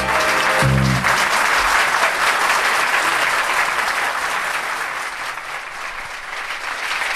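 An audience applauding after the song ends, the band's last chord cutting off about a second in. The clapping eases slightly toward the end, then swells again.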